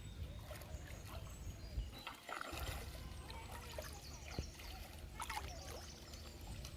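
Faint water sounds: trickling and small splashes at the water's surface, with a few light knocks and a low rumble underneath.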